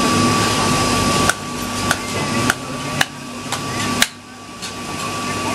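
A wooden club striking a large whole fish on a wooden chopping block: sharp knocks about twice a second, the loudest about four seconds in. A steady noisy din fills the first second or so before the knocks begin.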